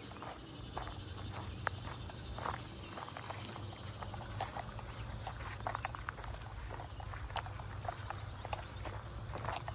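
Footsteps of a person walking, with dogs along: many short, irregular steps over a steady low rumble.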